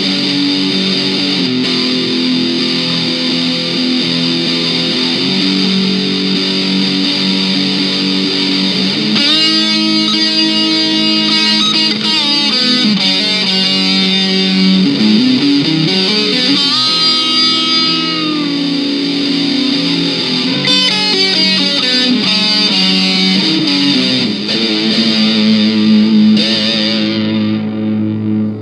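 Distorted electric guitar played through a Pyle Pro PDMIC78 dynamic instrument microphone: sustained notes and chords with string bends in the middle, the treble fading out near the end.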